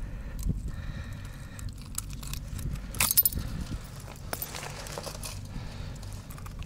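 Metal clinking and rattling of a fish lip grip and pliers, with rustling, as a pike that has swallowed the lure is unhooked. There is a louder rattle about three seconds in.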